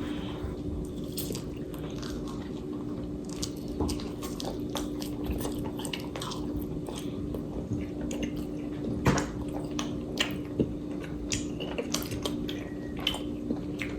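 Close-up chewing of a sauced boneless chicken wing: a run of wet mouth smacks and clicks over a steady low hum.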